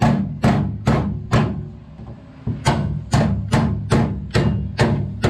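Ball-peen hammer striking the sheet-steel edge at the rear window opening of a 1969 Dodge Charger's body. The blows are sharp and evenly paced, about two a second, with a pause of about a second after the first four.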